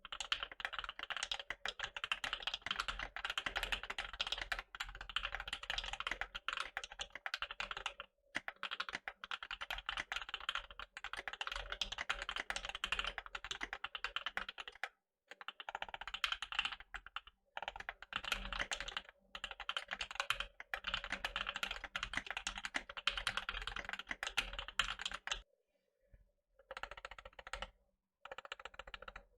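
Steady fast typing on a custom 65% mechanical keyboard with lubed, filmed linear Alpaca switches on a polycarbonate plate and PBT keycaps, giving dense, smooth keystroke clacks. The typing pauses briefly a few times and thins out near the end.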